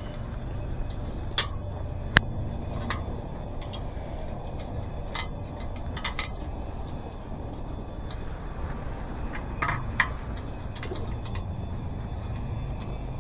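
Scattered clicks and knocks of hands and a screwdriver working a rubber inner tube and tire onto an e-bike wheel rim, the sharpest about two seconds in and again near ten seconds, over a steady low hum.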